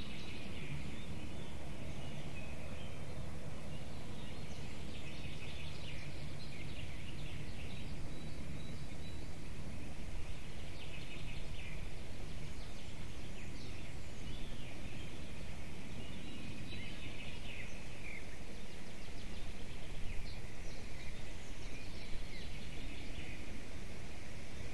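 Osprey calling: bouts of short, high, chirping calls repeated all through, over a steady low background hum.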